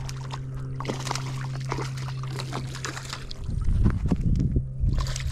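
Water splashing and sloshing as a hooked largemouth bass thrashes at the surface while being landed by hand, with short clicks over a steady low hum. A run of heavy low thumps and rumbles starts about three and a half seconds in.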